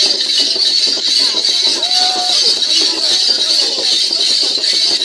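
Live traditional dance music: voices singing and calling over a steady rhythmic accompaniment, with one held sung note about two seconds in.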